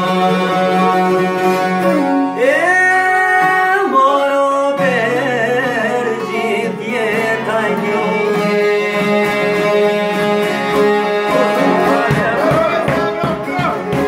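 Live Albanian folk music: a man singing over violin, accordion and strummed long-necked lutes. About eleven seconds in, the playing turns to a quick, choppy strummed rhythm.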